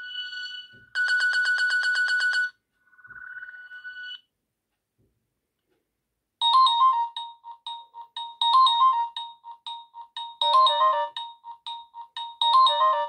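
Nokia 6680 mobile phone playing its ringtones. An electronic tone of held notes with a fast trill ends about four seconds in. After a pause of about two seconds the next ringtone starts, a quick electronic melody repeating a short phrase about every two seconds.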